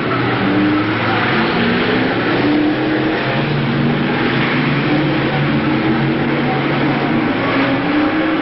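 A pack of BriSCA F1 stock cars racing hard round the oval, their big V8 engines running together as overlapping engine notes at different pitches.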